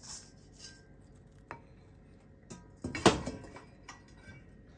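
A spatula knocking and scraping against a wok as the last fried rice is scraped out: a few separate taps, then a louder clatter with a short scrape about three seconds in.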